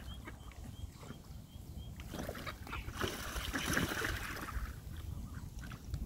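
Pond water splashing as mallard ducks and gulls scramble for food at the surface. A hissing splash builds about two seconds in and is loudest around four seconds.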